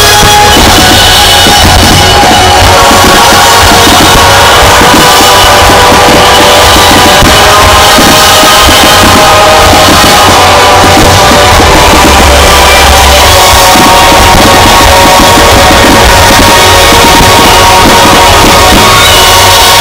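Loud rock-style show music with a heavy drum beat over a fireworks finale, with firework shells bursting throughout. The recording is overloaded and stays pinned at full level.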